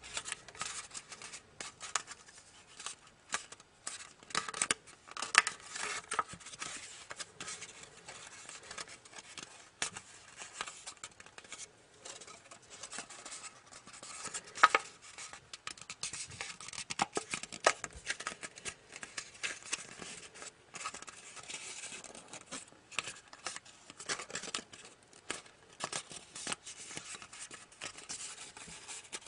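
A sheet of origami paper being folded and creased by hand, giving irregular crinkling and rustling with sharp crackles. The loudest crackles come about 5 and 15 seconds in.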